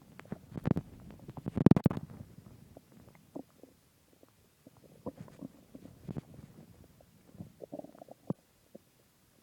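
Human stomach growling after a large meal of pizza and ice cream. A loud gurgling rumble fills the first two seconds, then softer scattered gurgles and pops follow.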